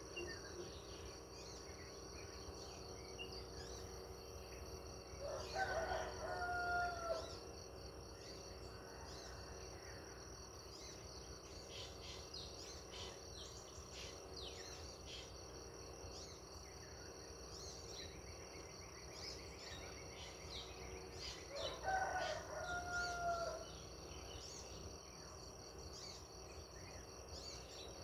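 A rooster crowing twice, each crow about two seconds long and ending in a downward slide, one near the start and one about sixteen seconds later. Under it runs a steady high insect chorus, with scattered small-bird chirps in between.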